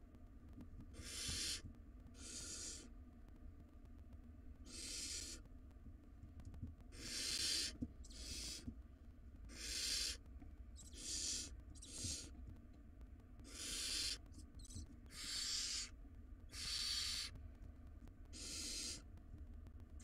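Barn owl nestlings giving their hissing begging calls, the 'snoring' of young barn owls: about a dozen hoarse hisses, each under a second, coming irregularly every one to two seconds.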